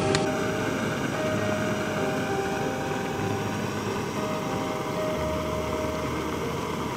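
Portable gas stove burner running with a steady hissing roar.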